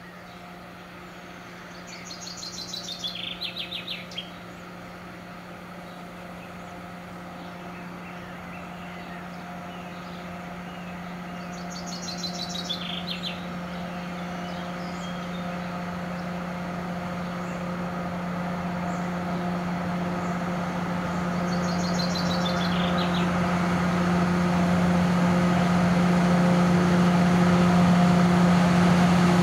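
Diesel locomotive engine droning steadily, growing louder as the freight train slowly approaches. A songbird's short descending trill sounds three times, about ten seconds apart.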